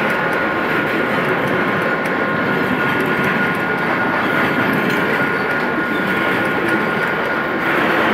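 Loaded coal hopper wagons of a freight train rolling past close by: steady rumble and clatter of steel wheels on the rails, with a thin steady high tone running through it and the noise growing louder near the end.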